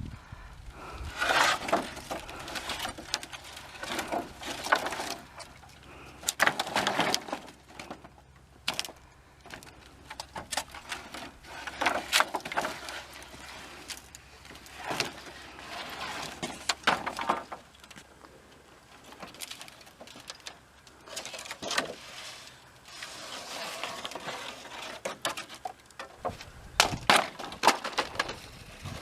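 Wooden boards and sticks being pulled down and thrown from a pile of sawn wood, landing with irregular knocks and clatters, some loud and sharp, with quieter gaps between throws.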